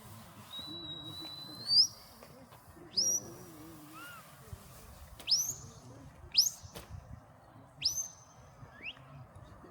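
A shepherd's whistle giving commands to a working sheepdog herding sheep: about six sharp whistles, each sweeping up and then held at a high pitch. The first one is long and steady; the later ones come every second or so.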